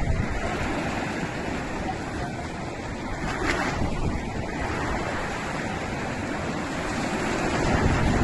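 Big ocean waves surging and breaking in strong wind, with wind buffeting the microphone.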